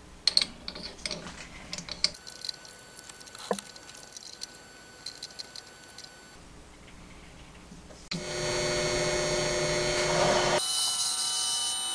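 Faint clicks and knocks of a gear being set and adjusted in a metal lathe's chuck. About eight seconds in the lathe starts and runs with a steady whine, and its tone steps higher near the end as it bores the gear.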